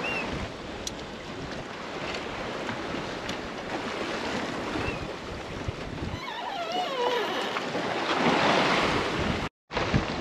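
Wind and sea water rushing past a small sailboat under way, with wind buffeting the microphone and a swell of rushing water near the end. A few short wavering squeaks come from the rigging about two-thirds of the way in, and the sound cuts out for a moment just before the end.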